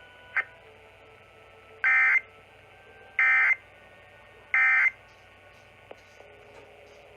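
Emergency Alert System end-of-message data signal heard over AM radio: three short, identical bursts of rapid warbling digital tones about a second and a half apart. It marks the close of the Required Monthly Test. A brief blip comes just before the first burst.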